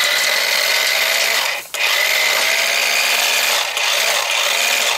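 Battery-powered cash cannon (money gun) running, its motor whirring as it flicks prop paper bills out one after another. The whirr cuts out for an instant just under two seconds in and dips briefly again near the end.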